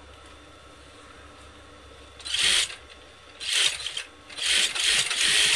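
Three rough rasping strokes on cloth as fabric is worked for cutting, the last one longer, about a second.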